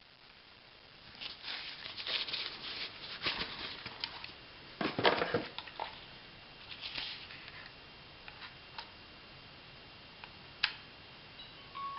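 Hands handling a new camcorder and its packaging: irregular rustling and crinkling, then a few sharp clicks. Just before the end a short electronic start-up chime begins as the camcorder powers on.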